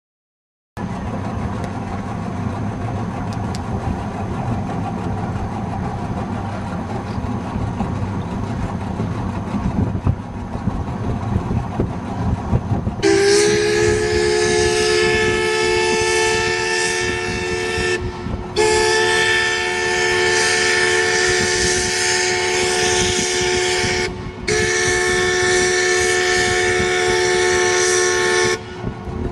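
A steamboat's steam whistle gives three long blasts, each about five seconds, a chord of several pitches that bends up slightly as the first blast starts. Before the blasts there is a low rumble.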